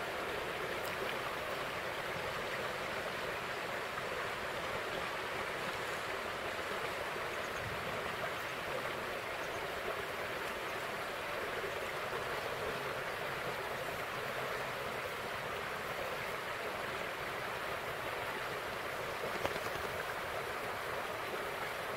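Steady rushing of a river's flowing water, running in a strong current.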